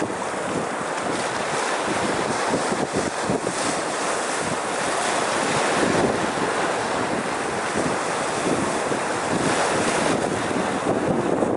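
Sea waves washing in and breaking around rocks on a rocky shoreline, a continuous rush of surf that swells about halfway through as a wave breaks over a boulder. Wind buffets the microphone throughout.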